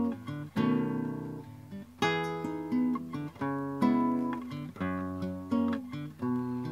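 Nylon-string acoustic guitar played fingerstyle: chords plucked and lightly strummed, a new chord about every second, each left to ring and fade.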